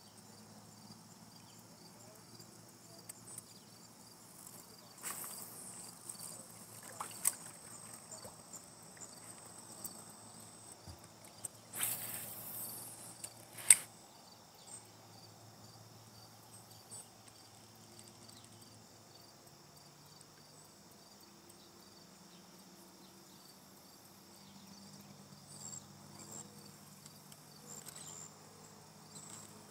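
Crickets chirring in a faint, steady, pulsing high chorus. A few sharp clicks and short hissing rushes break in between about five and fourteen seconds in, the loudest a single sharp click near the middle.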